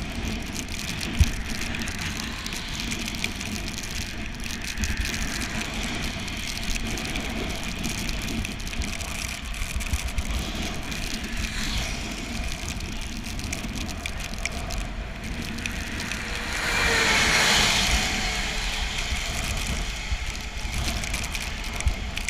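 Steady wind rumble and wet-road hiss from a bicycle being ridden in the rain. About seventeen seconds in, a louder rushing swell rises and fades, like a vehicle passing on the wet road.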